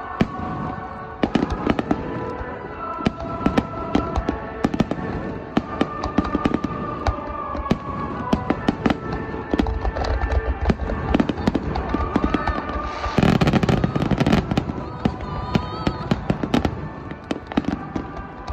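Aerial firework shells bursting in rapid succession: a dense barrage of sharp bangs and crackles, with a louder stretch of crackling about two-thirds of the way through.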